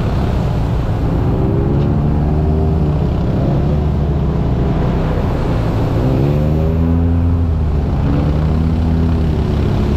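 Side-by-side UTV engine running under load on a muddy, water-covered trail, its pitch rising and falling as the throttle is worked.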